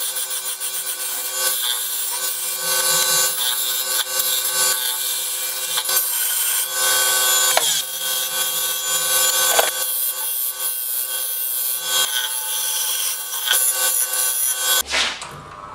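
Pine blank being turned on a wood lathe: the lathe's steady motor hum under the hiss and scrape of a hand-held turning tool cutting shavings from the spinning wood. It cuts off suddenly about a second before the end.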